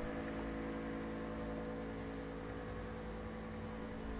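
Steady low electrical hum with a faint hiss underneath: quiet room tone, with nothing else happening.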